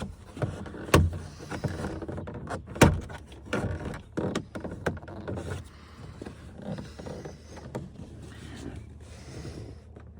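Irregular clicks, knocks and clatter of truck door parts being pried and worked by hand as a stubborn part refuses to come loose; the two sharpest knocks come about a second in and near three seconds.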